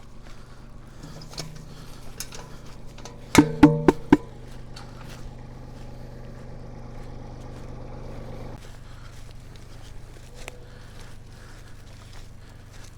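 A steady machine hum with four sharp, ringing bangs close together about three and a half seconds in. The hum's higher tones drop away at about eight and a half seconds.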